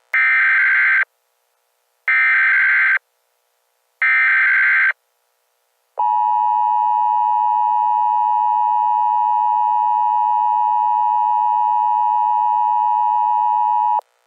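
Emergency Alert System tones: three identical one-second bursts of the SAME digital header, a second apart, then the steady two-tone EAS attention signal held for about eight seconds, which cuts off abruptly. Together they mark the start of a new emergency alert broadcast.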